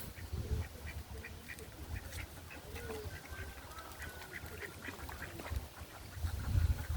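Ducks quacking in short, repeated calls, with a low rumble underneath that swells near the end.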